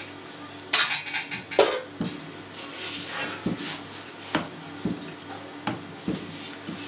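Wooden spatula knocking and scraping against a stainless steel bowl as hot suluguni curd is folded and kneaded in whey, in irregular knocks.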